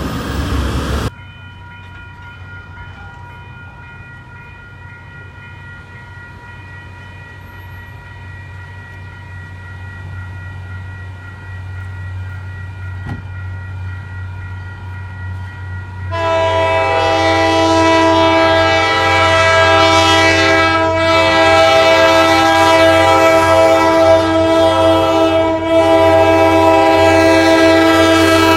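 MBTA train drawing closer with a steady low hum that slowly grows louder, then its air horn blowing one long, loud chord of several notes at once from about halfway through, still sounding at the end. A burst of loud noise cuts off suddenly about a second in.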